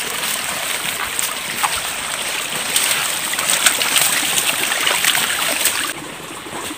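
Footsteps and rustling as a person pushes along a path through bamboo and leafy undergrowth, with many short crackles over a steady rush of running water from an irrigation channel or creek. The level drops suddenly about six seconds in.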